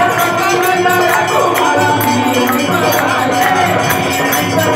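Devotional aarti music: a melody carried over a steady beat of jingling hand percussion.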